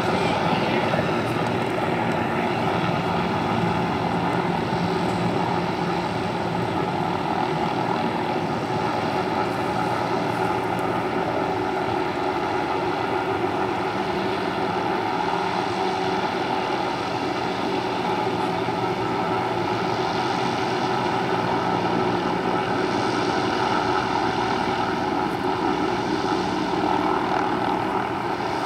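Sikorsky S-64 Skycrane helicopter flying, its rotors and twin turbine engines making a steady drone.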